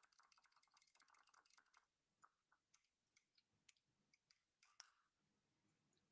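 Near silence, with faint, scattered light clicks.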